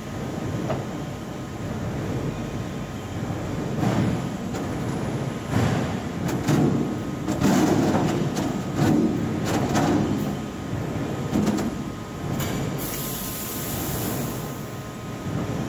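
Steel coil slitting line running as the steel strip is threaded off the coil into the machine's rolls, with the sheet clanking and banging several times over a steady mechanical rumble. A high hiss starts about thirteen seconds in and lasts about two seconds.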